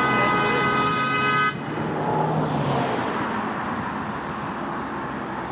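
A car horn held down in a long honk that cuts off suddenly about a second and a half in, followed by the steady noise of passing road traffic.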